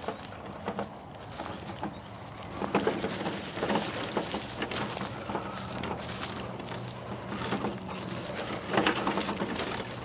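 Brushless electric motor and drivetrain of a CEN F450 radio-controlled pickup truck, running on a 2S battery, humming steadily while its tyres crunch and crackle over dry leaves, with louder bursts of crunching as it pushes through.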